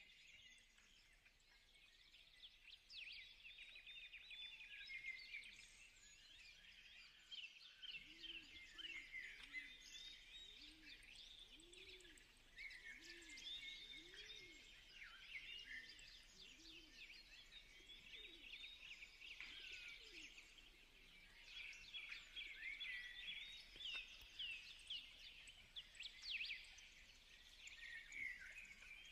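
Faint chirping of small birds, with a lower call repeating about once a second from about eight seconds in.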